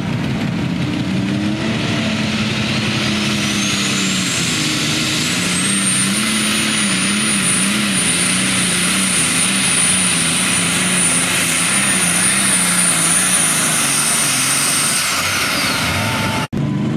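A John Deere Super Stock pulling tractor's turbocharged engine running under full load while pulling the sled, its low engine note wavering. A high turbocharger whine climbs over the first few seconds, holds, and falls away near the end as the pull finishes.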